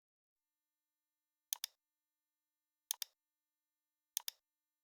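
Computer mouse clicking: three pairs of quick, sharp clicks about a second and a half apart.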